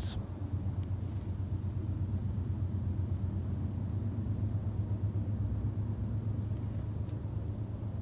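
Steady low background rumble with no clear event in it.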